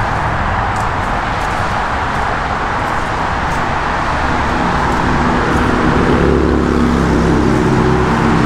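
Steady wash of highway traffic noise, with a steadier engine hum joining about halfway through.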